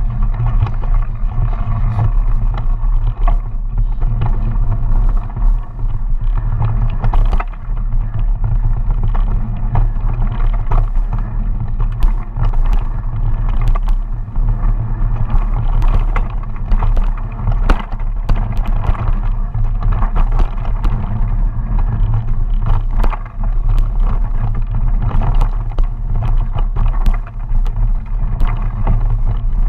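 Mountain bike riding over a dirt forest trail: a steady low rumble of tyres and wind on the microphone, broken by frequent clicks and rattles from the bike jolting over bumps.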